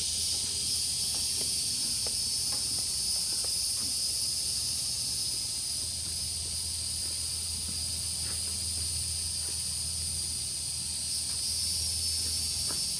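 A steady, high-pitched chorus of insects, sounding as two unbroken bands of pitch, over a faint low rumble.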